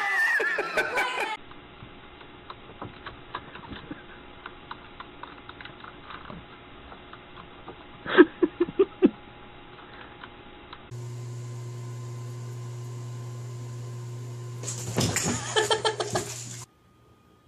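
Light clicking of computer keyboard keys, broken about eight seconds in by a short loud burst of laughter. Then a steady low hum starts, with voices briefly near the end.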